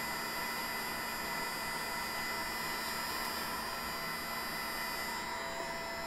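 Hot-air gun running, a steady electric hum and blowing, used to shrink heat-shrink tubing over soldered wire joints; its top-end hiss thins a little about five seconds in.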